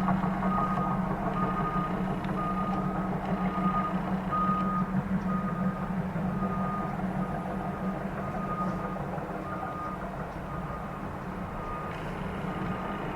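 Backup alarm on heavy construction or mining equipment beeping about every three-quarters of a second, over the steady drone of a diesel engine. The beeps grow fainter toward the end.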